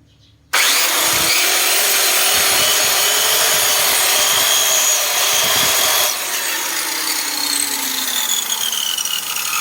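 100-volt electric circular saw switched on about half a second in and running steadily at full speed, then let off about six seconds in and spinning down with its pitch falling.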